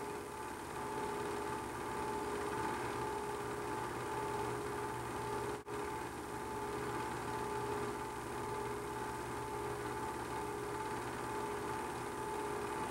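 Steady mechanical hum with hiss, the running noise of a home-movie film projector or transfer machine, with a brief dropout a little past halfway.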